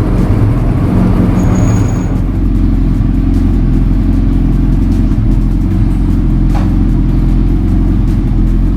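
2023 Suzuki Hayabusa's 1340 cc inline-four engine idling steadily while warming up after a cold start.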